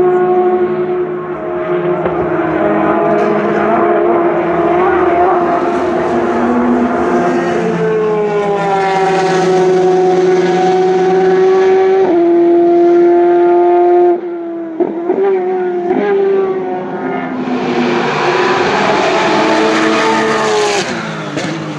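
Endurance race cars (GT cars and prototypes) running at high revs past the track, their engines holding a steady, high note. The pitch steps down twice around the middle with gear changes, and another car comes up louder near the end.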